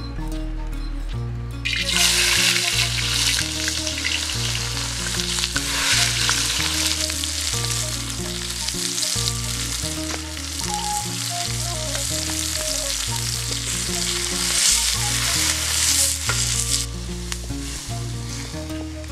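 Food frying in hot oil: a loud sizzle that starts suddenly about two seconds in, as if ingredients were dropped into the pan, and dies down near the end. Background music with steady low notes plays underneath.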